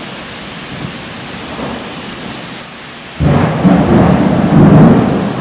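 Steady heavy rain, then about three seconds in a sudden loud clap of close thunder that rumbles on as the loudest sound.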